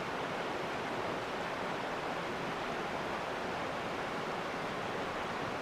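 Steady rush of river rapids, an even hiss of fast-flowing water that does not change.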